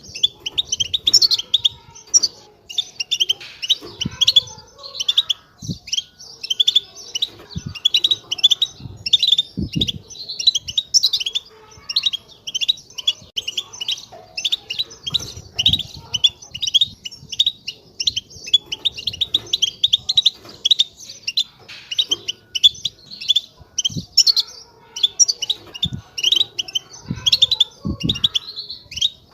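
European goldfinch singing: a continuous fast twittering warble of high chirps and trills, with a few faint low knocks.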